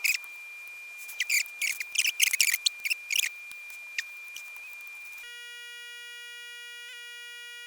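Lock pick scraping and clicking against the pins inside a pin-tumbler lock in short bursts, over a faint steady high whine. About five seconds in, this cuts off suddenly and a steady, buzzy electronic tone takes over.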